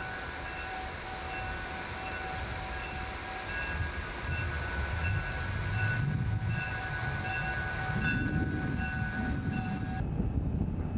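Diesel locomotive in Chessie System livery running at the engine house, with a ringing tone that pulses about every two-thirds of a second over the engine noise. The engine grows louder in the second half, and the ringing stops abruptly near the end.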